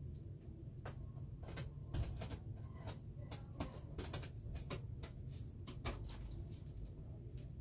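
Box cutter slicing packing tape and scraping on a cardboard shipping box: a string of irregular sharp clicks and short scrapes over a steady low hum.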